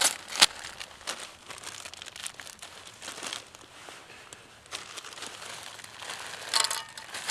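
Paper pouch of dehydrated potatoes crinkling and rustling as it is handled and opened, with two sharp crackles in the first half second.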